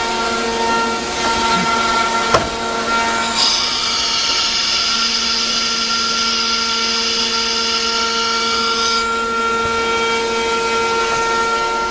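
The HSD spindle of an ATC CNC wood router runs with a steady whine of several held tones over the machine noise. There is one sharp click about two seconds in, and a louder hiss for about five seconds in the middle.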